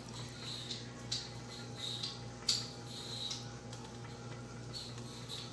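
Wooden spoon stirring shell macaroni in a stainless steel pot: soft wet squishing and scraping in irregular strokes, with an occasional light click, over a steady low hum.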